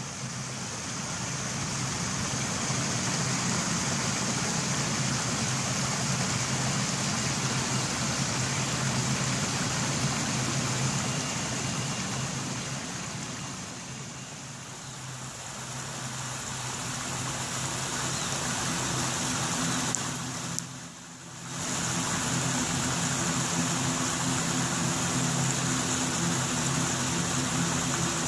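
General Electric CF34-8E5 turbofan engines of an Embraer ERJ-175 running as the jet taxis and lines up for takeoff: a steady jet hiss with a high whine and a low hum underneath. The sound cuts out briefly about 21 seconds in, then returns with the low hum steadier and more distinct.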